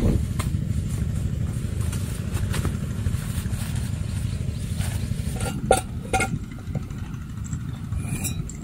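A steady low rumble, with a few sharp clicks and knocks about five and a half to six seconds in as backpack straps and buckles are handled against a tree trunk.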